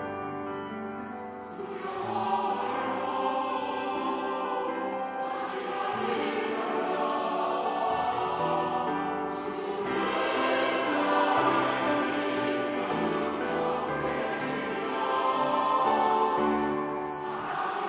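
Mixed church choir of men and women singing a Korean anthem in harmony, the voices growing louder about two seconds in.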